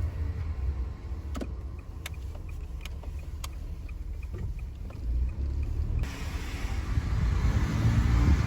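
Low, steady drivetrain rumble from a Honda kei car's CVT, presented as the abnormal transmission noise (groaning) that led to the CVT being replaced; it grows louder near the end. A few light clicks sound over the rumble about one and a half to three and a half seconds in.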